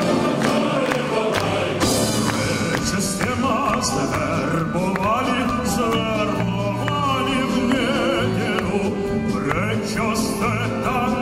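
A male soloist singing a Slavic folk song with orchestral accompaniment.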